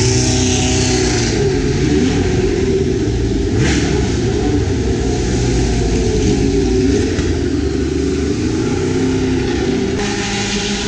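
Racing car engine running hard and revving, its pitch wavering up and down with several engine notes overlapping.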